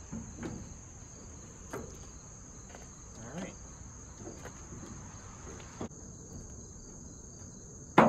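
Steady high drone of insects, with a scattered series of light clicks and knocks as a plastic pickup taillight and its wiring are handled and fitted into the bed pillar. One much louder knock comes at the very end as the taillight is pressed into place.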